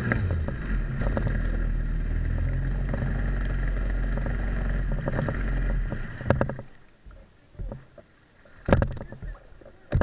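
Johnson outboard jet motor idling steadily after throttling down, then shut off about six seconds in. Several sharp knocks follow.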